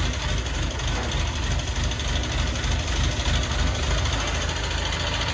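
Mobile crane's engine running steadily, a low, even drone.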